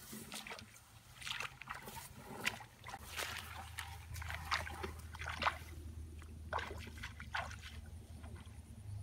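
Footsteps swishing and rustling through tall grass and sedge, in irregular brushing strokes, with a low steady hum underneath from about three seconds in.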